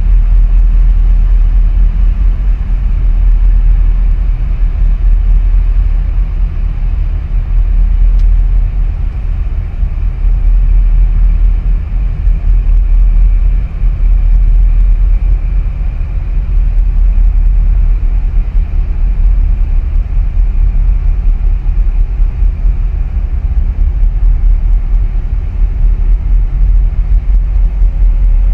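Deep, steady rumble of ship engines as a large container ship and its escorting tug pass close by, with the level wavering constantly.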